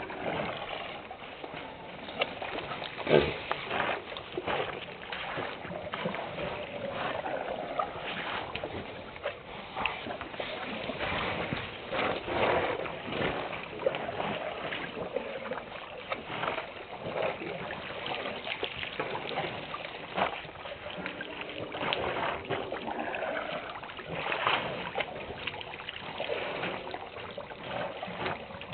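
African elephants drinking at a waterhole: irregular splashing and sloshing of water as trunks work in it, with one sharp knock about three seconds in.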